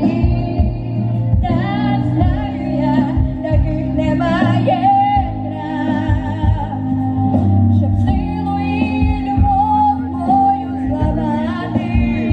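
Female voices singing a sustained, wavering melody over steady instrumental accompaniment.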